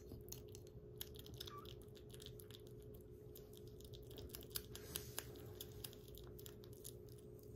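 Kitten eating soft weaning food from a ceramic bowl: faint, irregular small wet clicks of licking and chewing, over a steady low hum.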